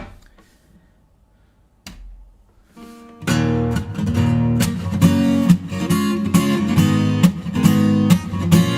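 Acoustic guitar: after a small click and a soft tap, it starts strumming chords about three seconds in and keeps a steady strummed rhythm as a song's intro.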